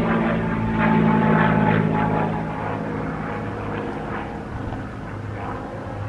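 A steady engine drone that slowly fades away.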